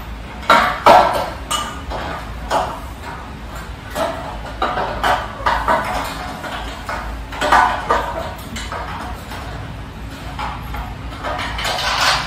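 Irregular metallic clinks and knocks from a flat-pack metal desk frame being assembled by hand, as bolts and frame parts are handled against the metal legs and the tile floor. The louder knocks come about a second in and near eight seconds.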